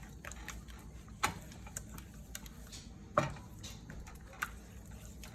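A spoon stirring a thick dip mixture in a pot, giving a few sharp knocks and clicks against the pot. The loudest knock comes a little past three seconds in.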